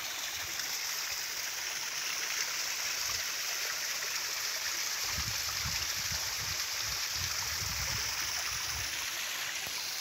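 Shallow stream running over a rock slab, fed by a small cascade spilling between boulders: a steady rush of water.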